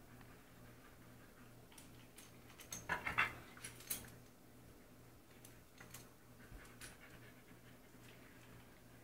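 Small dogs playing on a wooden parquet floor: claws clicking and scuffling, with panting. The clicks come in a brief louder cluster about three seconds in, then scattered through the rest.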